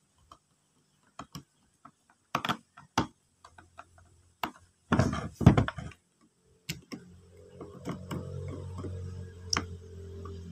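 Screwdriver working the gear-head housing screws of a Makita 9527NB angle grinder: scattered sharp clicks and ticks, with a louder scraping rattle about five seconds in. Low background music fades in over the last few seconds.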